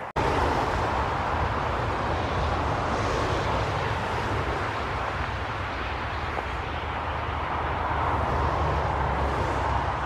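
Wind on the microphone: a steady low rumble with a hiss over it.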